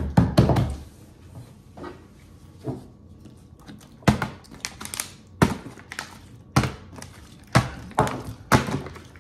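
Plastic water bottle tossed in bottle flips and hitting a kitchen countertop: sharp thunks, two at the start and a string of them about once a second in the second half.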